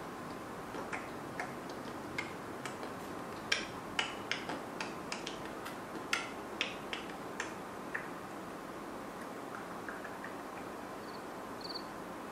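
Irregular light clicks and crinkles of a small plastic sachet of peel-off face mask being handled and squeezed, over steady room hiss. Two short high beeps near the end.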